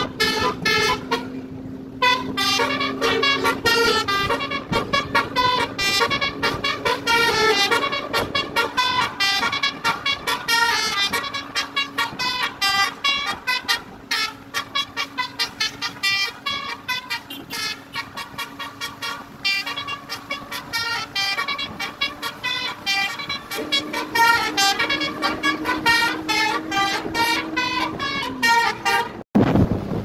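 A tour bus's 'basuri' telolet horn, a multi-trumpet electric horn, playing a fast melody of short stuttering notes, several a second, over a steady low held tone. It cuts off abruptly just before the end, leaving wind noise.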